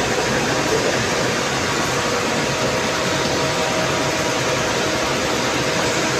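Steady, even rushing drone with a faint constant hum from an idling coach and its air-conditioning, heard at the open door.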